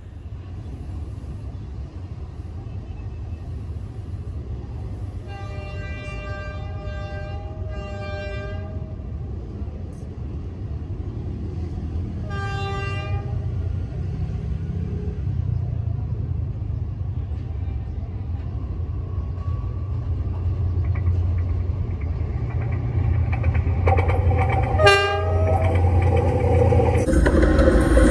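D19E diesel-electric locomotive approaching along the track, its low engine rumble growing steadily louder. Its horn sounds twice between about five and nine seconds in and once more around twelve seconds. Near the end there is a short sharp high sound, and the locomotive then rolls loudly over the rails.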